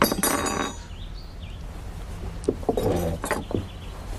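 Movement at a dinner table: a scraping rustle right at the start, then a few light knocks and rustles a little past halfway, over a steady low hum.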